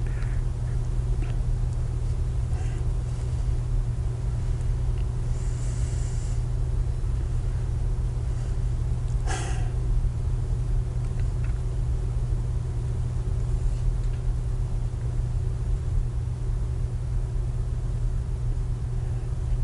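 Steady low hum and rumble of an old studio videotape recording, with no speech, and a few faint clicks and rustles, the clearest about halfway through.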